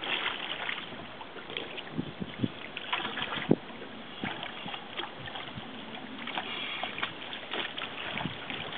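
Water splashing and lapping in small irregular bursts over a steady wind-like hiss, the loudest splash about three and a half seconds in.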